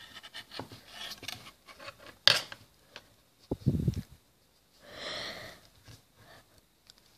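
Hands handling modelling clay and a clear plastic piece on a tabletop: scattered small taps and clicks, a sharp click about two seconds in and a low thud just before the middle. About five seconds in comes a short breathy sniff.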